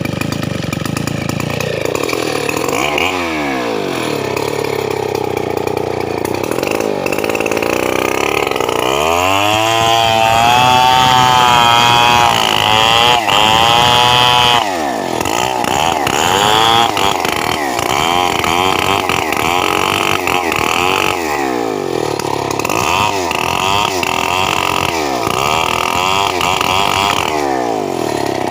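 Stihl 070 two-stroke chainsaw running and revving up and down over and over. It is held at high revs for several seconds around the middle.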